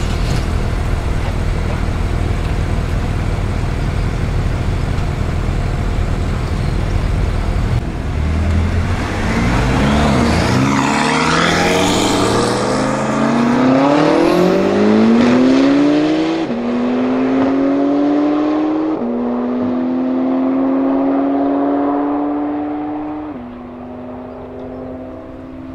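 Two drag-racing cars, an 820 hp tuned Porsche 991 Turbo S and a BMW M5, rumbling at the start line, then launching hard. Their engine notes climb steeply, drop back at each upshift, and fade as the cars pull away down the strip.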